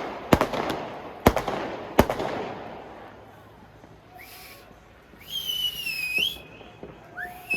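New Year's fireworks: three sharp bangs in the first two seconds, each with a short echoing tail. Later come two shrill whistles that waver and glide in pitch, typical of whistling fireworks.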